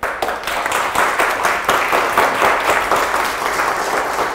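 Audience applauding: many hands clapping, starting suddenly and going on steadily.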